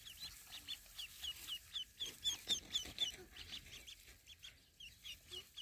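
A group of ducklings peeping together: many short, high chirps, several a second and overlapping, busiest about two to three seconds in.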